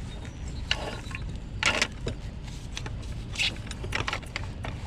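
A few short scrapes and clanks of jacking gear being set under a car at the pinch weld, over a low steady rumble.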